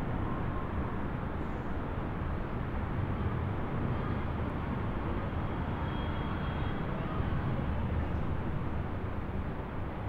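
Steady, low rumbling outdoor background noise, with no distinct events.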